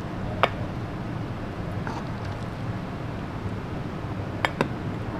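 Steel ladle clinking against a plate as spinach-mutton curry is served: one sharp clink about half a second in and two quick ones close together near the end, over a steady low hum.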